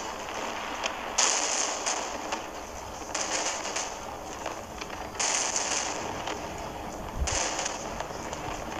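Fireworks going off, a fresh crackling burst about every two seconds, each one fading out before the next.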